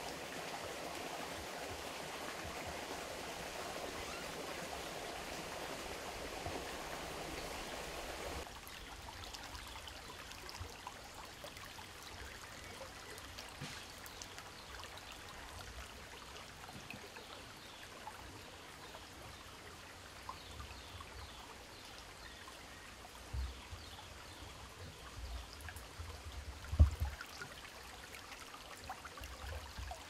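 Shallow stream running over pebbles, a steady rush of water that drops suddenly to a quieter background about eight seconds in. Near the end there are a few low thumps, the loudest about 27 seconds in.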